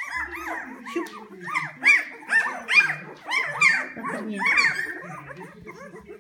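Newborn poodle puppies crying: many overlapping short, high, arching squeals and whimpers several times a second, the calls of hungry puppies wanting to nurse. The cries are loudest around the middle and thin out near the end.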